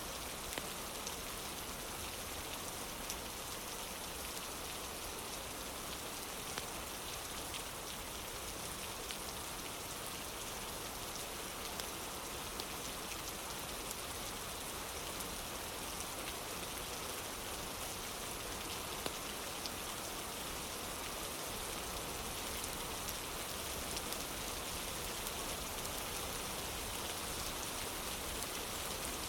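Steady rain falling on a wooden porch, an even hiss with scattered sharp ticks.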